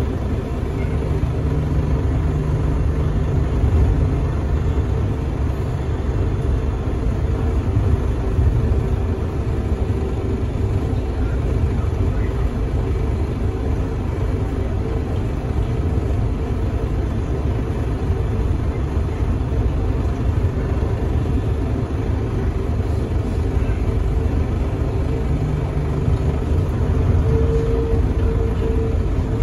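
Bombardier Innovia APM 100 rubber-tyred people mover heard from on board while running along its concrete guideway. A steady low rumble carries a faint constant motor whine, which grows a little stronger near the end.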